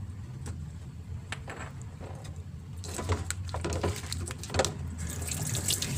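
Kitchen handling sounds of a spice shaker being shaken and its plastic cap handled: scattered light clicks and rattles, busier after about three seconds, then a short burst of hiss near the end, over a steady low hum.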